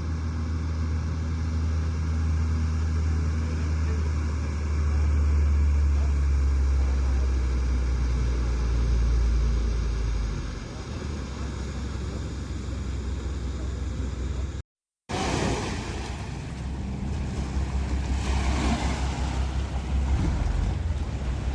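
Passenger launch's engine running with a steady low drone, which drops away about ten seconds in, leaving water and wind noise.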